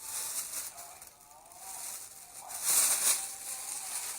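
Newspaper crackling and rustling in uneven swells, loudest about three seconds in.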